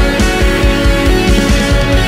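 Worship band playing a loud rock instrumental passage: electric guitar over electronic drum kit and keyboard, driven by a quick, steady kick-drum beat.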